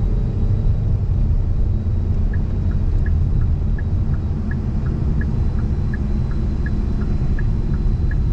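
A car driving, with a steady low engine and road rumble. About two seconds in, a light, regular tick-tock of alternating higher and lower clicks starts and keeps going.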